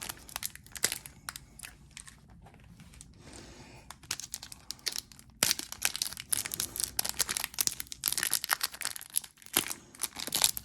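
Foil wrapper of a Pokémon booster pack crinkling and crackling as it is pulled and torn at, a pack that is hard to tear open. Sparser for a couple of seconds, then dense crinkling from about halfway.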